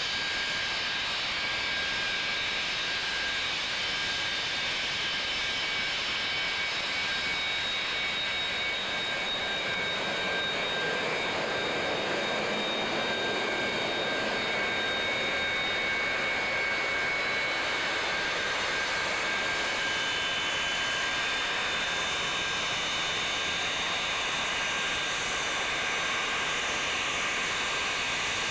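Boeing 737 airliner's jet engines running at taxi power: a steady rush of engine noise with several high whining tones. The whine shifts partway through.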